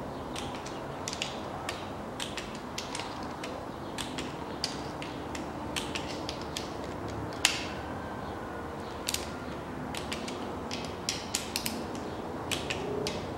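Torque wrench ratcheting in short runs of clicks as the camshaft bearing cap bolts on a cylinder head are tightened down, with one sharper click about halfway through.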